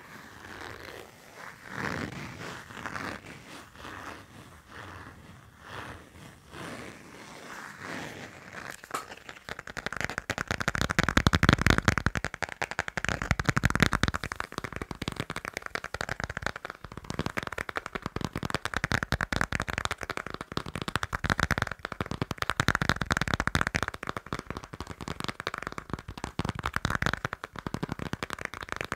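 Fast tapping and scratching on a passport: soft, scattered taps for the first third, then dense, rapid, louder scratching from about ten seconds in.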